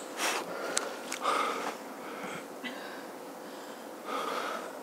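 A man breathing hard in several short, noisy breaths, with a single sharp click about three-quarters of a second in.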